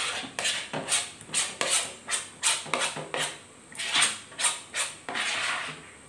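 Repeated scraping or rubbing strokes at an uneven two to three a second, with one longer stroke about five seconds in.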